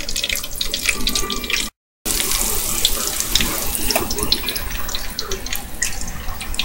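Cornbread-battered swai fish fillets sizzling and crackling steadily as they deep-fry in hot oil in a skillet. The sound cuts out completely for a moment about two seconds in, then the sizzle resumes.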